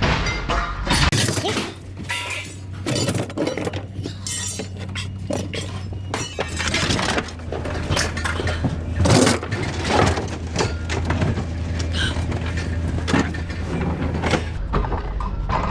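Scrap metal and appliance parts being thrown out of a pickup bed onto a scrapyard pile: an irregular run of metallic bangs and crashes. A steady low hum runs underneath and stops near the end.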